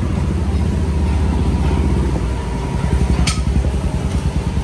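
Street traffic: motor vehicle engines rumbling close by, with one brief sharp high click about three seconds in.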